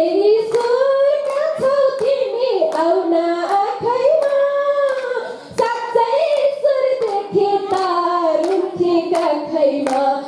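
A woman singing a devotional worship song solo into a microphone, holding long notes, with hand clapping keeping a steady beat about twice a second.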